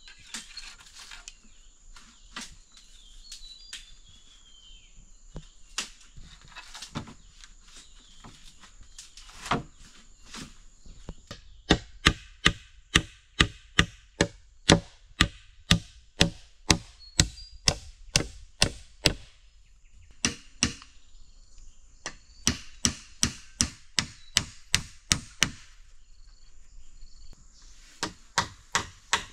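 Hammer blows on bamboo poles at a joint, sharp evenly spaced strikes about two or three a second. A few scattered knocks come first, then a long steady run of strikes, a short pause, and a second run.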